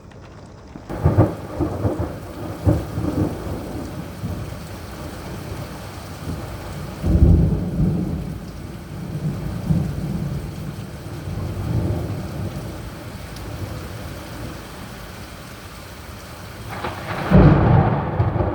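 Thunder in a heavy thunderstorm with steady rain. There is a sharp crack with rolling rumble about a second in, another loud clap and rumble about seven seconds in, and a sudden close crack near the end. That last strike comes within about a second of its lightning, less than a mile away.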